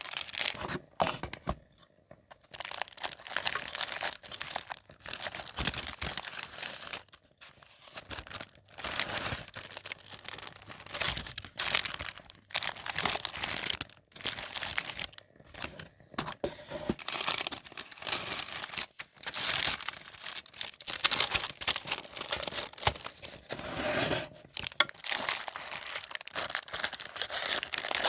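Paper being handled, crinkled and torn in irregular strokes of rustling, with short pauses between them.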